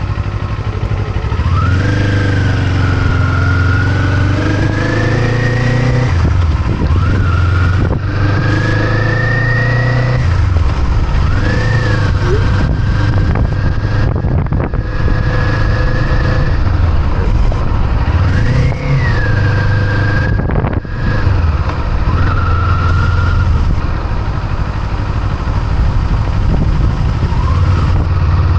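Kawasaki Eliminator SE motorcycle engine being ridden, its pitch climbing and levelling off about seven times as the bike pulls away and shifts through gears, over a steady low rumble and rushing noise.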